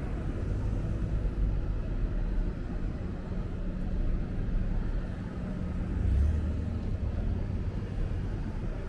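City street sound: a steady low vehicle engine hum over a low rumble, swelling briefly about six seconds in.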